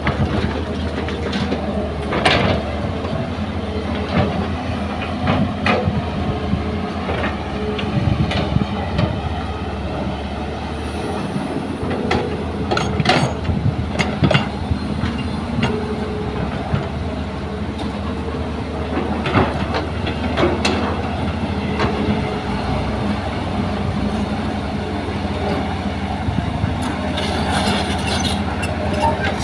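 Diesel crawler excavator running steadily while loading a dump truck, with scattered clanks and thuds as the bucket swings and drops soil and stones into the truck's steel bed.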